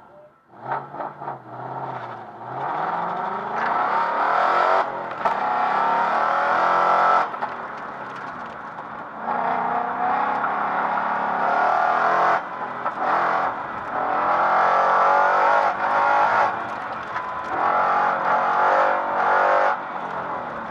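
Car engine on an autocross run, building up over the first few seconds. It then runs at hard throttle with rising pitch, broken by several short lifts off the throttle.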